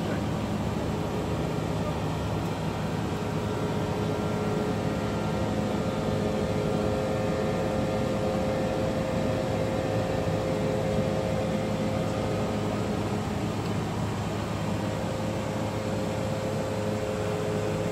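Airbus A330 flight-deck noise in flight: a steady rushing noise with a low hum under it and a couple of faint steady tones.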